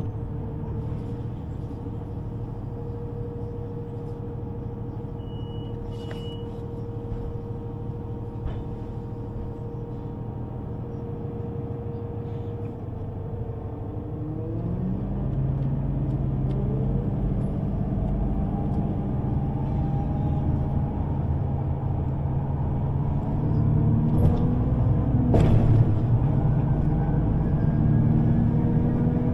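Electric underground train: a steady hum with a held tone for the first half, then from about halfway the traction motors whine in several rising tones as the train pulls away and gathers speed, growing louder. A couple of sharp clicks from the car.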